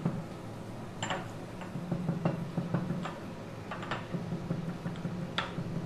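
Pestle knocking and grinding dried rosemary in a small white mortar: irregular sharp knocks and scrapes, over a steady low hum.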